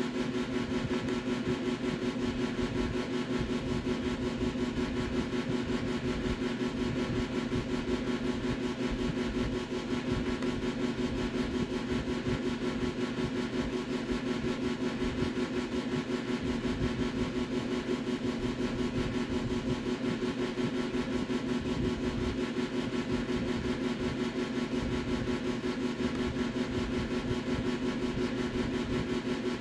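A steady machine hum with an even hiss above it, unchanging throughout.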